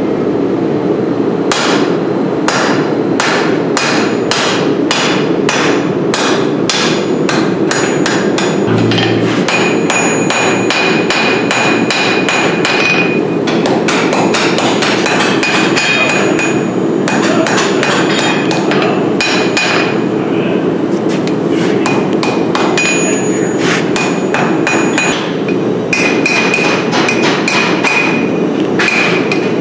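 Hammer blows on red-hot steel over an anvil during forging: runs of steady strikes about two a second, broken by brief pauses, with a clear metallic ring from the anvil. A steady background noise runs underneath.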